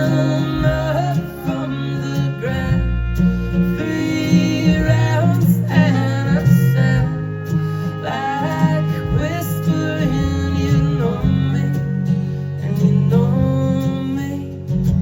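Live folk-rock band playing an instrumental passage of the song: guitar and sustained low bass notes under a sliding melodic lead line.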